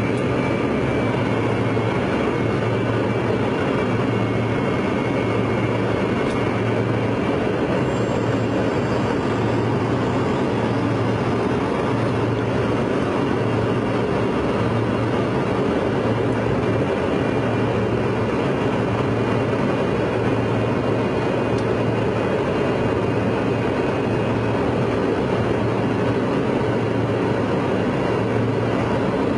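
Steady airliner cabin noise in flight, the drone of the engines and rushing air heard from inside the passenger cabin, with a low hum that swells and fades every second or two.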